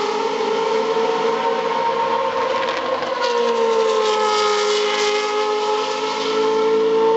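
Several Auto GP single-seaters' Zytek V8 engines running flat out through a fast corner, their notes held nearly steady. A louder engine note comes in about three seconds in.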